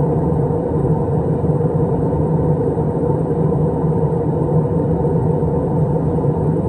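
Steady cabin noise of an Airbus A320 airliner in flight: a constant drone of engines and rushing air, with a low hum underneath and no change throughout.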